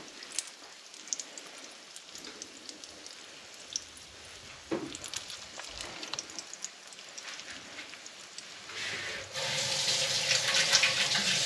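Quarkkeulchen frying slowly in a pan: a faint sizzle with scattered small pops and crackles. About nine seconds in, a much louder, steady rushing hiss sets in.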